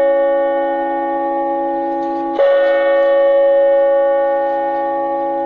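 Bell-like chime tones ringing: one sustained strike, then a second strike about two and a half seconds in that rings on and slowly fades.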